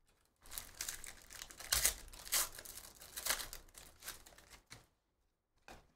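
Panini Donruss Basketball card pack wrappers being torn open and crumpled: dense crinkling for about four seconds, then one short crinkle near the end.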